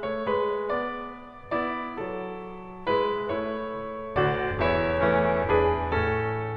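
Background piano music: a keyboard melody of separate notes that ring and fade, with deeper bass notes coming in about four seconds in.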